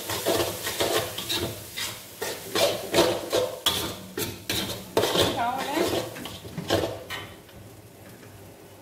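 Metal spatula scraping and clanking against a wok as mee goreng noodles are stir-fried and tossed, in quick irregular strokes. The stirring stops about seven seconds in.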